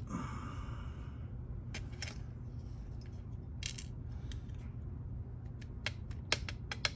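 Small metal lock parts clicking and clinking as a pin-tumbler lock cylinder is taken apart. There are a few sharp clicks spread out, then a quicker run of clicks near the end.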